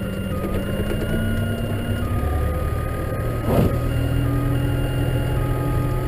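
Tractor engine and drivetrain running, heard from inside the cab while it pushes a snow plough: a steady drone with a thin whine over it, the engine note shifting about halfway through. A single short clunk comes about three and a half seconds in.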